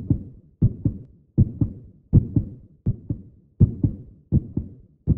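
Heartbeat sound effect: a steady run of paired lub-dub thumps, about 80 beats a minute.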